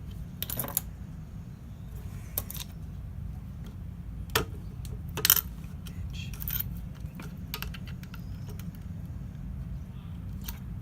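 Keys and metal parts of a key-cutting machine clinking and clicking as they are handled and adjusted: about seven sharp clicks spread out, the loudest about five seconds in, over a steady low hum.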